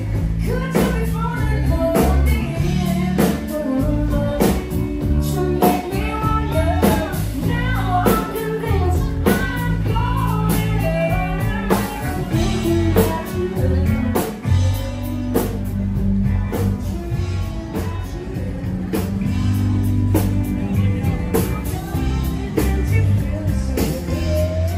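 Rock-style band music with a singer, guitar and a steady drum beat.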